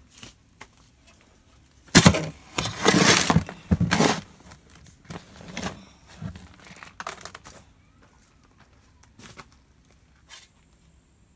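Shovel scooping and scraping into loose dirt, with the gritty rasp of soil sliding off the blade. The heaviest strokes come about two to four seconds in, then a few lighter scoops.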